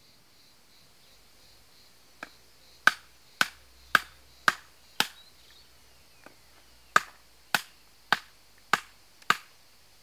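Sharp knocks in two even runs of about five, a little under two a second, with a short gap between the runs.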